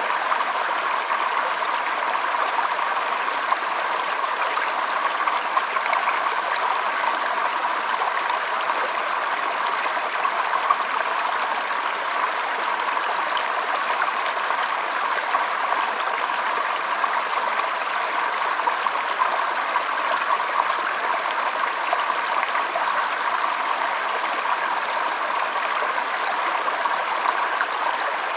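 Flowing stream water, a steady unbroken rush and babble.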